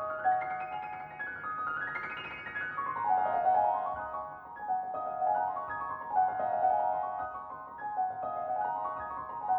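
Solo piano playing flowing arpeggiated runs. They climb to a high peak about two seconds in, then turn into rippling figures that rise and fall roughly once a second.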